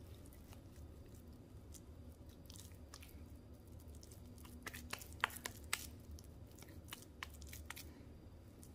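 Hands scooping and patting raw ground turkey mixture into a patty: soft wet squishing, with a run of sharp little slaps and clicks in the middle.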